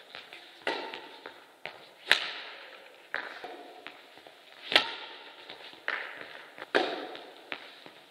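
Badminton rackets striking a shuttlecock back and forth in a rally: four sharp cracks, each ringing out in the hall's echo, with softer taps between them.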